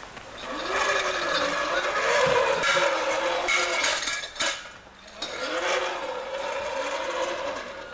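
Playground spinner (roundabout) squeaking as it turns, a rising-and-falling squeal that repeats with each rotation, dropping away briefly about five seconds in.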